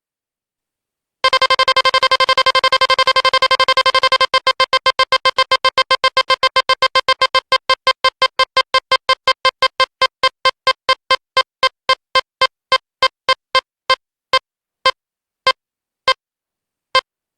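Electronic slot machine spinning-reel tone: a fast run of identical beeps that gradually slows down, like reels coasting to a stop, starting about a second in and ending with a few widely spaced beeps.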